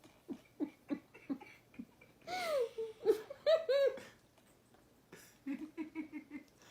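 A person laughing in short giggling bursts, with a louder, squealing stretch in the middle and a quick run of chuckles near the end.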